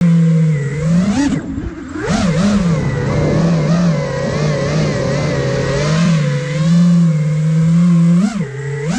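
Motors and propellers of an iFlight Nazgul Evoque F5 five-inch FPV quadcopter whining in flight. The pitch holds mostly steady and swoops up in quick throttle punches about a second in, at two seconds, and twice near the end.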